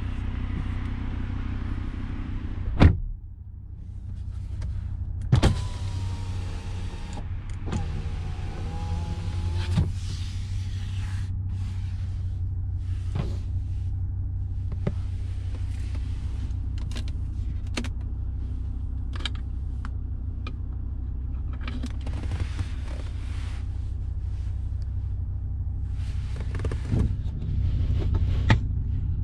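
A car's engine hums steadily at idle. About three seconds in, a rear door shuts with a heavy thud, and the sound turns duller afterwards. After a click, a power window motor whines for about four seconds, followed by scattered small clicks of hands handling the interior trim.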